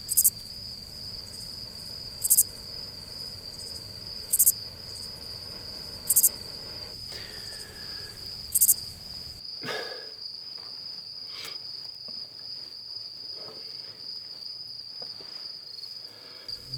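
Crickets trilling steadily at a high pitch, with a louder, higher insect call repeating about every two seconds for the first nine seconds.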